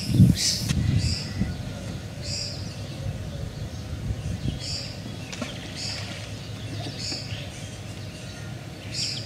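A small bird calling over and over, short high chirps every second or two, over a steady low outdoor rumble. A brief low thump comes right at the start and is the loudest thing heard.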